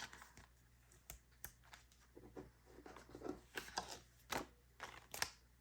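Faint rustling and light taps of paper bills and cash envelopes being handled, a scatter of short soft sounds.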